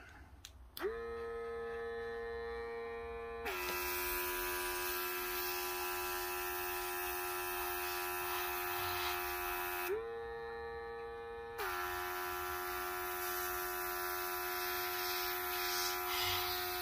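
Small electric airbrush compressor running with a steady hum. About three seconds in the airbrush trigger opens and a hiss of air comes in while the compressor's pitch drops under the load. The hiss stops for a moment near ten seconds and the pitch rises, then spraying resumes and the pitch drops again.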